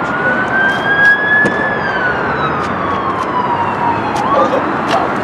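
A siren wailing in one slow sweep, rising in pitch and then falling away over about four seconds, over a steady background rush of traffic noise.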